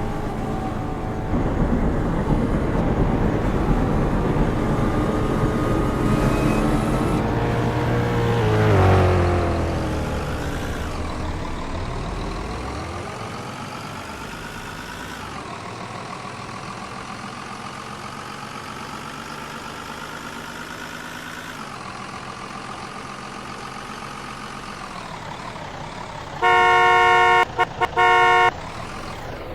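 A motor vehicle's engine running and pulling away, its pitch climbing and dropping back a couple of times as it shifts up through the gears. Near the end a horn sounds in a few short honks.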